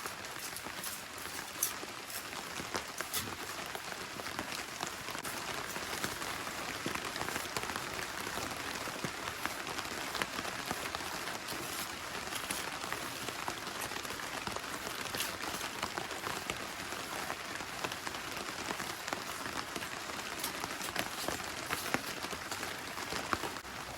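Heavy rain falling steadily: a dense, even hiss of drops with many small sharper drip ticks scattered through it.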